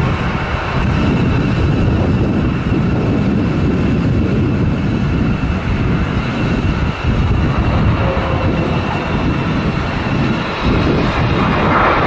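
ANA Boeing 777 jet airliner landing, its engines giving a steady whine over a heavy, irregular rumble of strong wind buffeting the microphone. The engine noise swells near the end.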